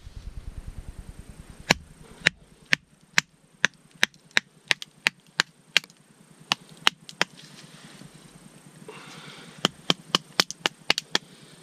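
Hatchet chopping and splitting dry, knotty dead wood on a stump chopping block: a run of about fourteen sharp knocks at roughly two a second, a pause, then a quicker run of about eight near the end.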